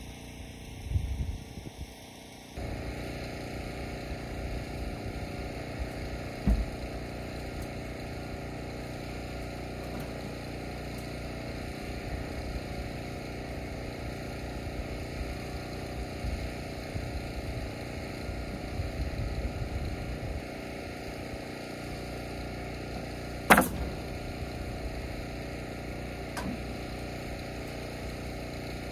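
Steady engine hum with one loud, sharp crack of a pneumatic nail gun firing into lap siding about three quarters of the way through, and a fainter click a few seconds later.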